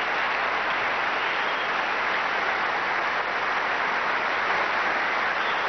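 Large tennis crowd applauding steadily, a dense even clapping.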